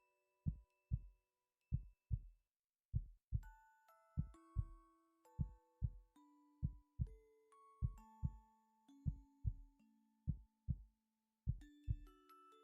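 A human heartbeat heard close up, as through a stethoscope: paired low thumps, lub-dub, about once a second. Soft bell-like music notes ring over it.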